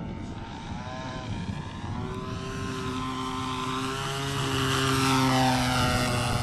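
Engine and propeller of a radio-controlled Yak 54 model aerobatic airplane droning steadily as it makes a low pass. It grows louder as the plane comes near and is loudest about five seconds in.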